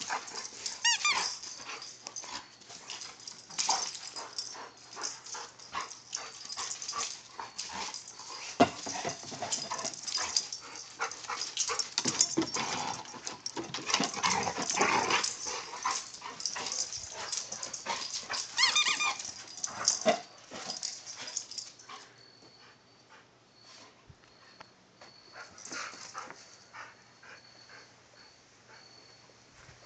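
Two dogs play-fighting over a squeaky rubber bone, making rough dog play noises, with the toy squeaking a few times. The scuffle is loud for about the first two-thirds and then dies down to faint sounds.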